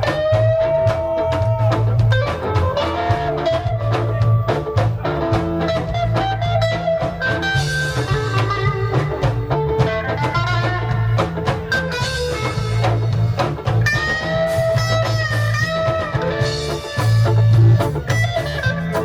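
Instrumental reggae band music: a melodic lead guitar line over a pulsing bass and a drum kit, with no singing.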